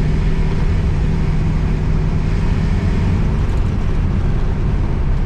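Inside the cabin of an Oldsmobile Toronado under way: steady road and wind noise over a low engine hum, which fades about halfway through.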